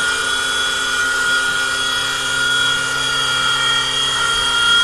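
Electric motor and propeller of a toy remote-control airplane in flight, a steady high-pitched whine.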